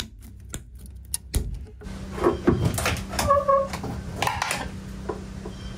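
Side-cutter pliers snipping plastic zip ties off a bundle of boat throttle cables and wiring, a run of sharp clicks. Then knocking and scraping as the throttle cable is worked loose and pulled out through the boat's console.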